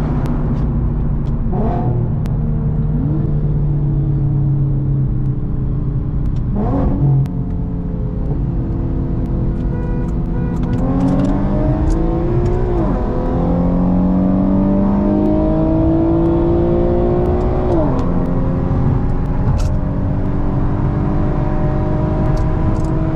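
Infiniti Q50 with a test-pipe exhaust accelerating hard through the gears: the engine note climbs steadily, then drops back at three upshifts several seconds apart. The exhaust is loud throughout.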